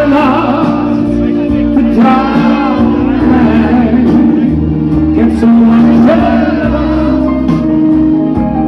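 A man singing live into a handheld microphone over a music backing track, with held instrumental chords beneath a gliding vocal melody.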